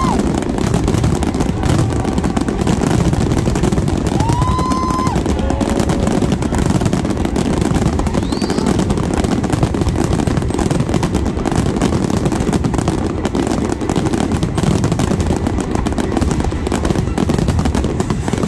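Fireworks finale barrage: a dense, unbroken rattle of shell bursts and crackling reports, fired too fast to separate. About four seconds in, a brief held whistle rises and steadies over the bangs.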